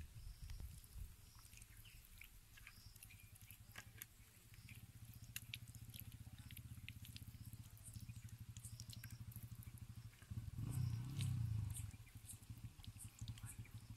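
Faint outdoor rural ambience: scattered short high chirps and clicks over a low rumble that swells for a couple of seconds about ten seconds in.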